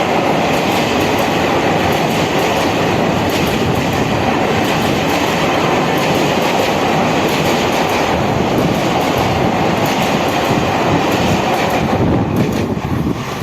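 Passenger train rolling past at speed, its wheels clattering over the rail joints in a steady run of clicks; the sound starts to thin out near the end.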